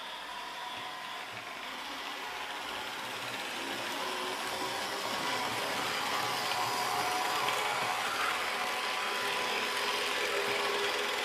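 H0-scale model train hauling LUX track-cleaning cars over Märklin C-track: a steady whir of small electric motors with a faint whine, the rail-vacuum car's fan running, growing louder as the train approaches and passes.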